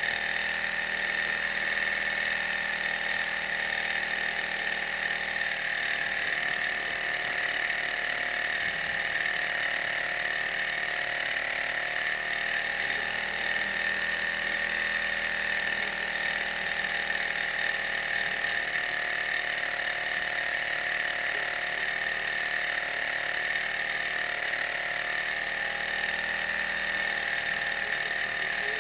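Small Stirling hot-air engines running steadily while driving LED lights, a constant high-pitched whir.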